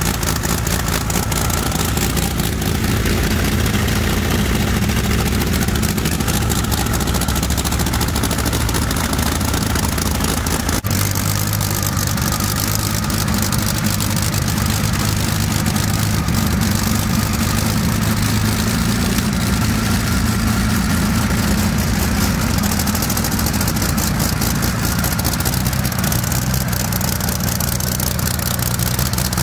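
Rolls-Royce Merlin 25 V12 aero engine running steadily on a test stand, its short open exhaust stubs giving a loud, even, rapid firing pulse with a deep, heavy tone.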